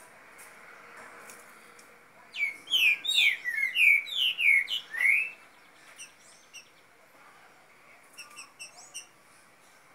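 Young green-winged saltators (trinca-ferro) singing: a rapid run of about ten loud sweeping notes from about two to five seconds in, then a few soft short chirps near the end.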